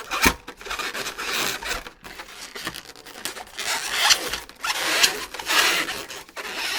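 Latex modelling balloons rubbing against each other and against hands as they are pushed and pulled together, in several rasping strokes.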